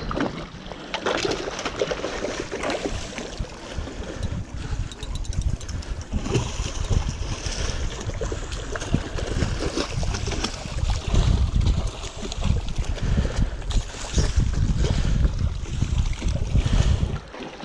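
Wind buffeting the microphone over lapping, splashing seawater, the low rumble strongest in the second half.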